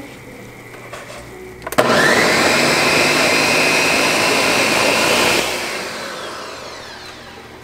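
A countertop blender is switched on with a click about two seconds in. Its motor whines up to speed and runs steadily, puréeing a thick orange mixture. About five seconds in it is switched off and spins down with a falling whine.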